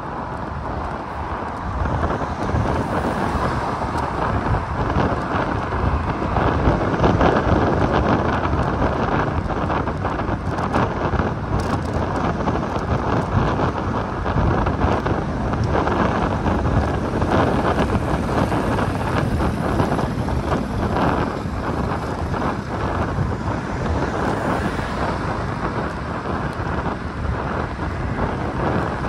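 Wind rushing and buffeting over the microphone of a camera riding on a moving fixed-gear bicycle: a steady, gusting rush that swells slightly about two seconds in.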